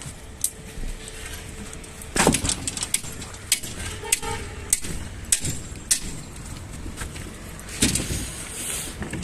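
A series of irregular sharp knocks and clicks, the loudest about two seconds in and another near the end, over a low steady rumble.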